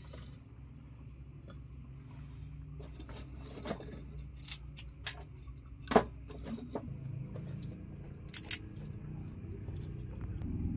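Split wooden kindling sticks knocking and clattering as they are laid one by one into a stone hearth: a scatter of light clicks and knocks, the loudest about six seconds in and a quick pair a little later.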